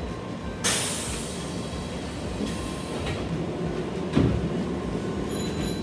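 Sanyo Electric Railway train's pneumatic doors closing: a sudden sharp hiss of air about half a second in that fades over a second, then a thud about four seconds in, over the steady hum of the stopped train.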